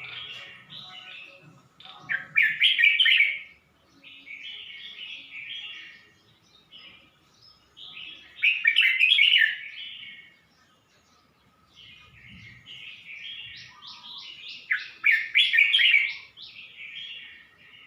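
Red-whiskered bulbul singing: three loud phrases of quick chirped notes about six seconds apart, with quieter chattering between them.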